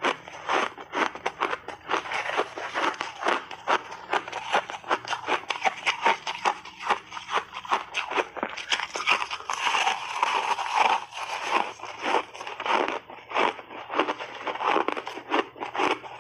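Refrozen ice being bitten and chewed, picked up close by a clip-on microphone: a rapid, irregular run of crisp crunches and cracks.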